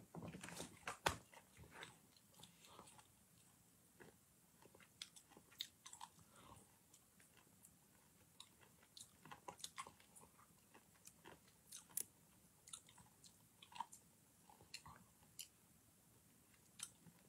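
A person chewing food close to a phone's microphone: faint, irregular wet clicks and small crunches.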